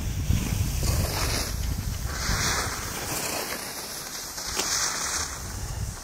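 Wind buffeting the microphone, a steady low rumble, with a few swells of hiss rising and fading over it.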